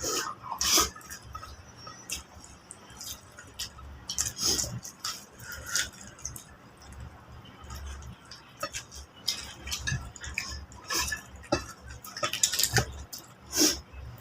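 People eating whole chicken with rice and curry: irregular chewing and biting noises, with scattered clinks of plates and dishes.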